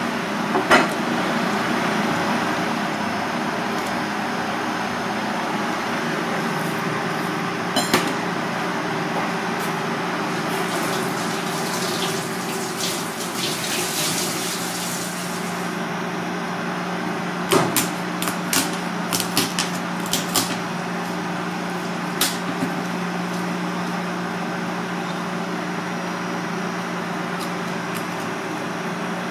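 A kitchen knife knocking and cracking through the shell of a Balmain bug (slipper lobster) on a plastic cutting board over a steady kitchen hum. There is a single knock about a second in and another around eight seconds, then a quick run of knocks a little past halfway.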